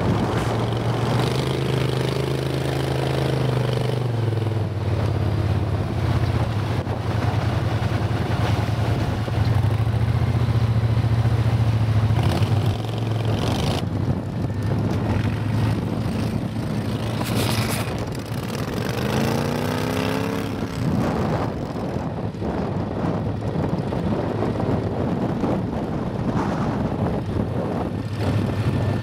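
Mud motor engines on jon boats running steadily through shallow mud. The drone swings up and down in pitch as the throttle is worked, most clearly a little after the start and again about two-thirds of the way in.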